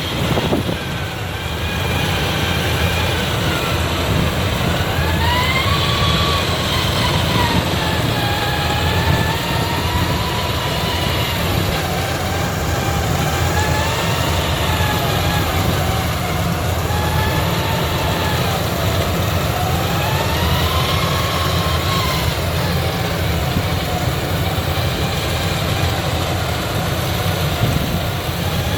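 Combine harvester at work cutting rice: a steady, loud diesel engine rumble with a whine above it that slowly rises and falls every two to three seconds as the machine's load changes.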